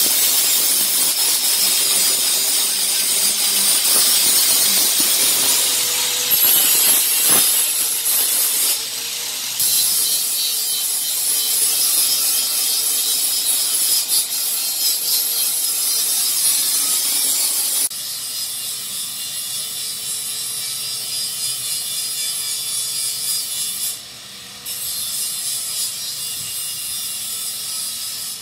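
Electric angle grinder running against a metal fender, stripping paint and rust, with a steady motor whine under the scraping grind. The sound jumps abruptly in level a few times and is quieter over the last third.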